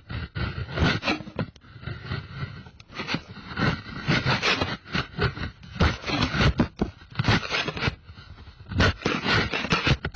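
Wide metal paint scraper pushed in short, irregular strokes across the steel roof of a 1972 Volkswagen Type 3, lifting flaking layers of later orange repaint off the grey primer.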